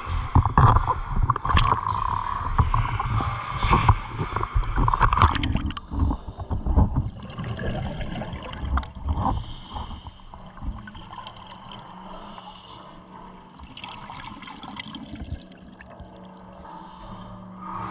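Underwater sound of scuba diving: a regulator's exhaust bubbles gurgling and rumbling past the camera, loudest in the first six seconds, then quieter with a hiss of breath through the regulator now and then.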